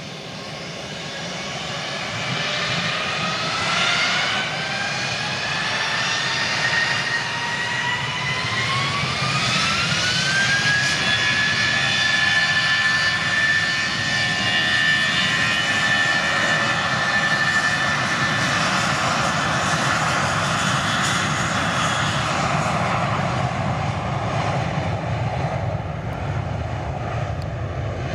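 Airbus A320-family airliner's twin jet engines spooling up to takeoff power. A whine climbs in pitch over the first ten seconds or so while the level rises, then holds steady over a low rumble. The whine fades away in the last few seconds.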